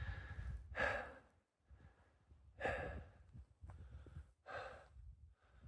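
A man breathing hard from the exertion of a steep uphill climb: about five heavy, breathy exhales a second or so apart.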